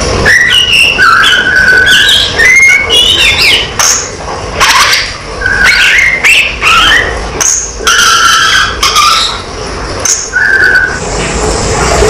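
Caged tledekan (blue flycatcher) singing: a run of clear whistled phrases, with short held notes and quick slides up and down, broken by brief pauses.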